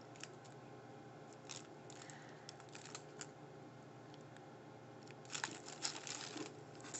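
Faint crinkling of the paper wrapper around a sushi burrito as the halves are held and handled: a few soft rustles, then a busier patch of rustling about five seconds in.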